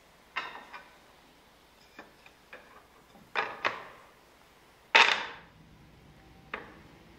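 Sharp wooden clacks of a grand piano's hammers and action parts being handled and lifted by hand. About nine scattered clicks, the loudest about five seconds in.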